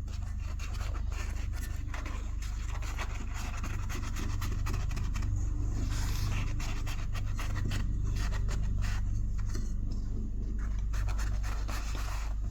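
Irregular light scratching and rubbing as a new foam surround is pinched, pulled and worked under the edge of a 6-inch McIntosh speaker cone by hand, over a steady low hum.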